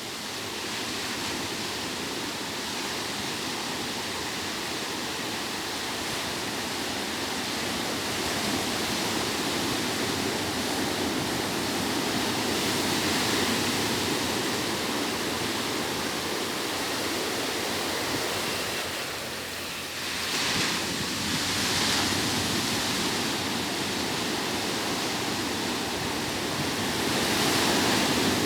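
Ocean surf breaking on a beach: a continuous rushing wash that swells and fades, with a short lull about 19 seconds in before a wave breaks again, and another swell near the end.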